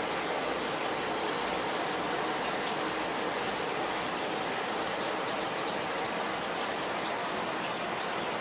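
Water from an aquarium filter's outflow pouring and splashing steadily onto the surface of a turtle tank.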